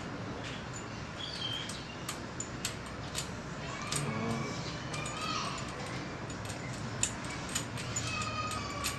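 Scattered metal clicks and taps of a plug spanner working a motorcycle spark plug loose, with short calls of birds or children in the background.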